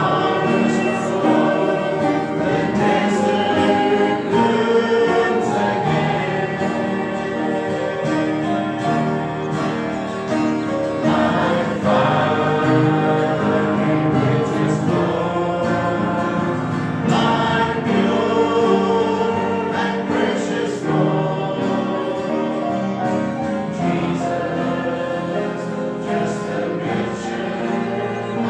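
Congregation singing a gospel hymn together.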